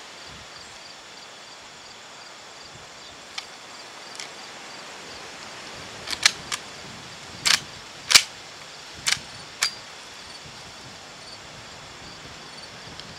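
Faint steady insect trilling, broken by a handful of short sharp clicks and knocks between about three and ten seconds in. The loudest two come close together near the middle.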